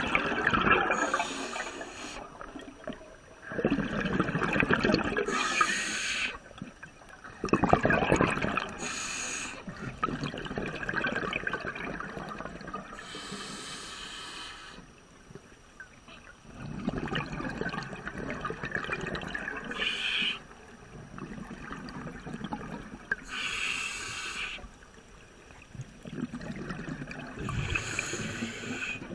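Scuba regulator breathing heard underwater: bursts of exhaled bubbles gurgling and hissing, coming in separate breaths every few seconds.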